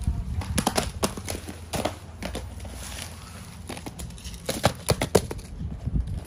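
Cardboard takeaway pizza and food boxes and paper carry bags being handled and opened: irregular taps, knocks and paper crinkling, with clusters of sharper clacks about a second in and again around five seconds in.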